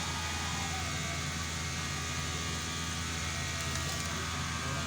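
A steady low machine hum with evenly spaced low overtones, holding an even level throughout.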